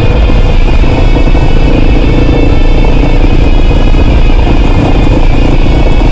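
Kawasaki KLR650's single-cylinder engine running at a steady pace on a bumpy dirt road, with loud wind and road rumble on the microphone.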